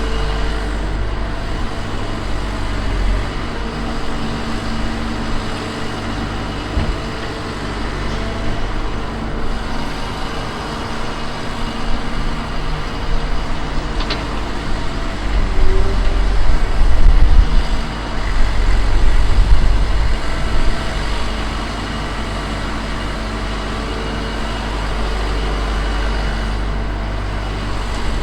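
Heavy diesel construction machinery running steadily with a low engine rumble. It grows louder and rougher for several seconds past the middle, then settles back.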